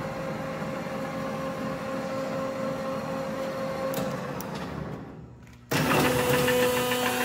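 1980 LeBlond Regal Servo Shift lathe's spindle motor and geared headstock running with a steady hum while the chuck turns. The sound winds down around four to five seconds in, then starts up again suddenly and louder, with more rattle, about six seconds in, as the servo-shift speed selector is turned to a new spindle speed.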